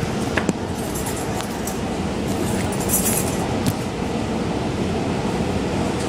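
Steady rumble of a moving Long Island Rail Road C3 bi-level passenger car, heard from inside: wheels running on the track, with a few short clicks and clinks and a brief high hiss about three seconds in.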